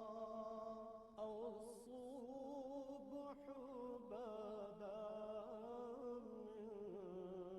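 Faint music: a slow, chant-like melody of long held, slightly wavering notes.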